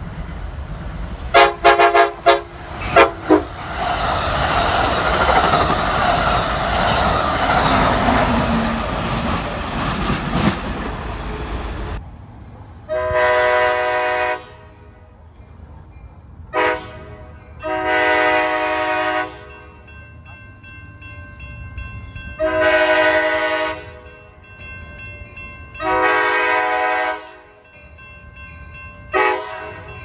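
Amtrak Surfliner cab car horn sounding several short, quick blasts, followed by the train rushing past with wheels clattering. After that, separately, the horn sounds a series of long blasts broken by a couple of short ones as the train approaches.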